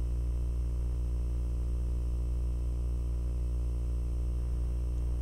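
Steady low electrical hum with a stack of overtones and a faint hiss, unchanging throughout: mains hum picked up in the recording chain.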